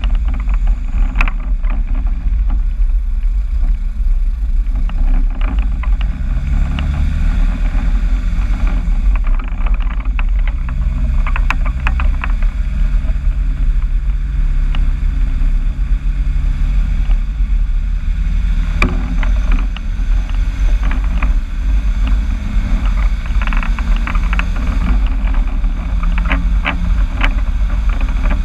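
Vehicle engine running through a new exhaust, a steady low rumble whose engine note rises about six seconds in and holds, with scattered light clicks and rattles and one sharper click near the end.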